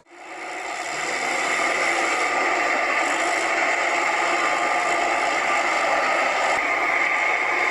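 Heavy truck running steadily with a rattling whir, fading in over the first second.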